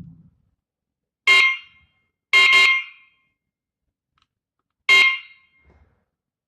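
Wireless strobe siren of a BBN W20 home alarm system giving short, loud electronic chirps: one about a second in, a quick double chirp, then one more, as it answers the signals sent from the alarm panel during pairing.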